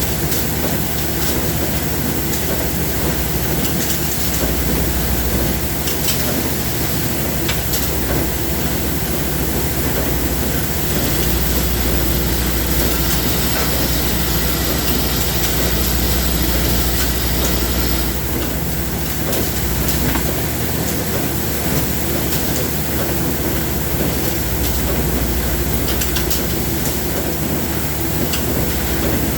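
Steady, loud machinery noise with scattered sharp clicks. A higher hiss joins in from about eleven to eighteen seconds.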